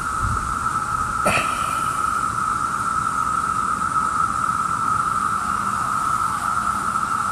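Steady chorus of Brood II periodical cicadas (Magicicada): one even, unbroken hum at a single pitch. A brief sharp crackle sounds about a second in.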